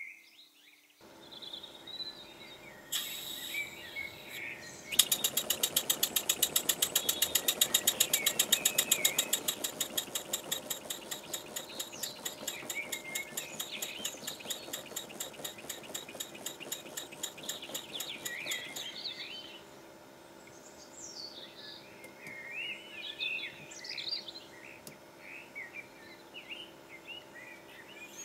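A small wig-wag oscillating engine on compressed air, driving a model lathe through belts. After a brief hiss of air it starts puffing in a fast, even beat of about six exhausts a second, then slows and fades out about two-thirds of the way through. Birds chirp in the background.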